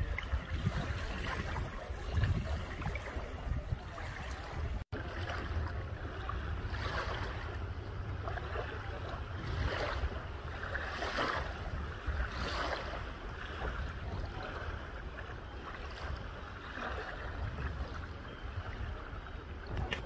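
Small bay waves lapping gently onto a sandy beach, with soft washes every second or so, over a steady rumble of wind on the microphone. The sound drops out for an instant about five seconds in.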